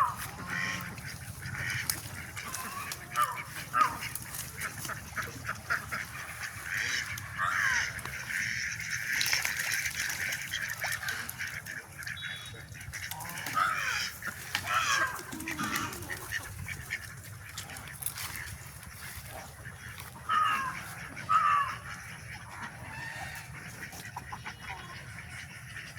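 Free-range country chickens calling, a run of short calls that fall in pitch, repeated irregularly with louder bursts now and then.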